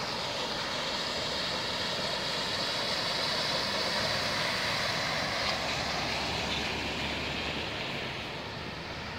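Pickup truck driving through shallow flood water covering a road, its tyres hissing and throwing spray in a steady wash of noise that swells as it passes close by and eases off near the end.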